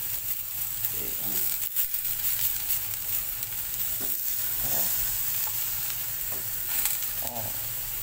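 Halved eggplants sizzling steadily in oil on a hot grill plate over a medium fire, with a few faint clicks.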